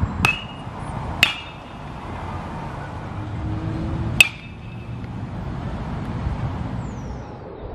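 Metal baseball bat striking baseballs: three sharp pings, each with a short high ring, about a quarter second in, a second later, and at about four seconds.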